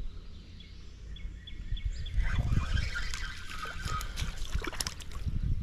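Spinning reel being cranked, its gears giving a run of fast, even ticks that grow busier about two seconds in, over a low rumble of wind and handling on the microphone.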